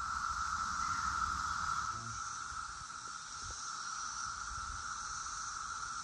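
Chorus of Brood X periodical cicadas: a steady, unbroken hum held at one pitch.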